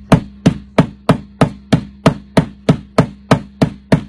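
Rapid, evenly spaced hard strikes on a phone's tempered glass screen protector, about three a second, each a sharp crack that dies away quickly.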